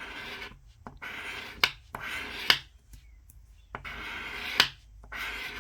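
A coin, a Salt River Bay quarter, scraping the coating off a lottery scratch-off ticket in about five short strokes. Several strokes end in a sharp click as the coin edge leaves the card.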